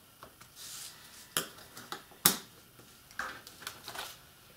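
A bone folder scoring a line in paper on a plastic scoring board: a short scrape, then two sharp taps about a second apart, the second the loudest, and soft paper scuffs near the end as the paper is lifted off the board.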